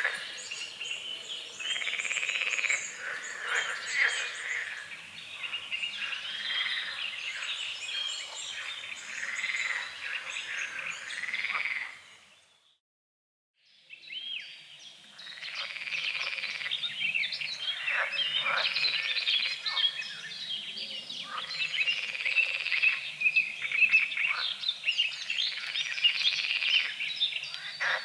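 Frogs croaking in a chorus with birds singing over it, many repeated calls overlapping. About halfway through, the whole chorus fades to silence for a second or so and then comes back.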